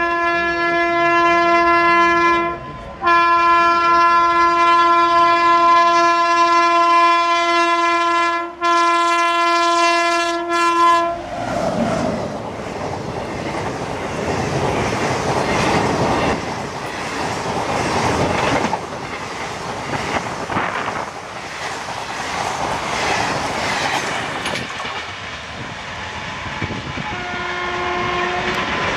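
An Indian Railways WAP7 electric locomotive's horn sounds loudly for about eleven seconds as the express runs through at over 100 km/h. The horn is one steady note, broken into a few blasts by short gaps. The coaches then rush past with loud rail clatter, and a faint horn sounds again near the end.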